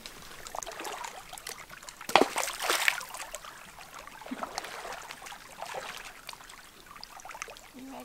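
Shallow lake water sloshing and splashing as a person wades, with a louder splash about two seconds in.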